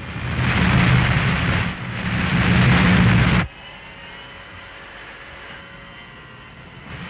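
Old serial-film rocket ship sound effect: a loud rumbling, hissing drone that cuts off abruptly about three and a half seconds in, leaving a faint hum, and starts up again near the end.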